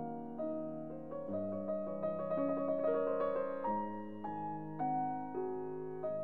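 Background piano music: slow, gentle chords, each note struck and fading, with a quicker run of notes in the middle.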